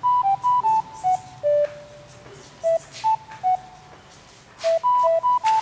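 Background music: a simple melody of short, pure whistle-like notes hopping up and down, played in phrases that repeat, with a pause in the middle.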